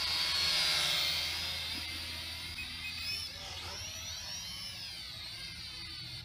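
Holy Stone toy quadcopter's motors and propellers whining, loudest about half a second to a second in as it passes close overhead. The sound then fades and the pitch rises and falls as it flies off.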